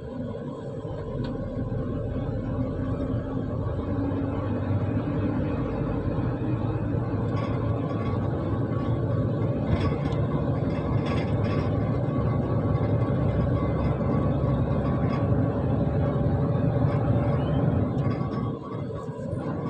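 Loaded lorry's diesel engine running under way, heard from inside the cab with road rumble; it gets louder over the first few seconds, then holds steady.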